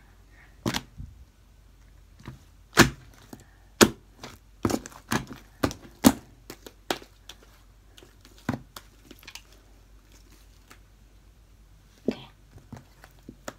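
Homemade PVA-glue slime being stretched and squeezed between the hands, giving a run of sharp, irregular pops and snaps as the air pockets in it burst, with a lull before the last few.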